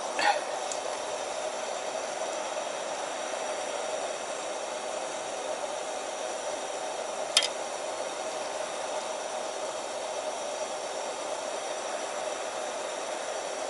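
Steady hissing background with one sharp metal clink about seven seconds in, a metal ladle knocking against a copper stew pot while serving. A couple of short knocks sound at the very start.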